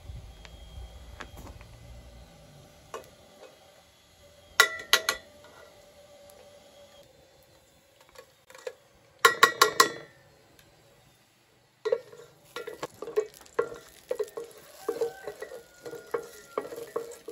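Kitchenware clinking and knocking, with a loud clatter about halfway through, then a wooden spoon stirring and scraping in a metal cooking pot, tapping repeatedly against it, over oil sizzling in the pot.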